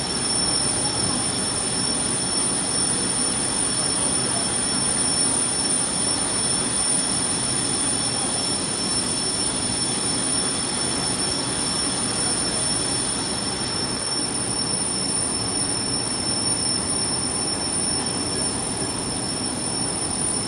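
Aluminium foil printing press running at speed: a steady mechanical running noise of rollers and drives, with a constant high-pitched whine over it.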